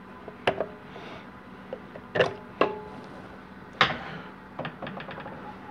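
Metal clanks and clicks as a servo pin gauge tool and wrench are handled on a 700R4 transmission case: four sharp knocks, some with a short ring, then a quick run of light ticks.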